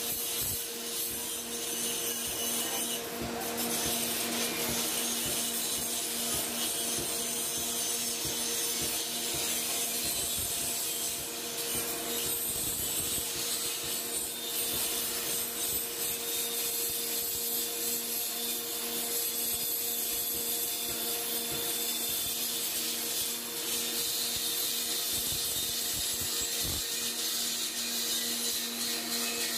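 A grinder running continuously: a steady motor hum with grinding noise over it.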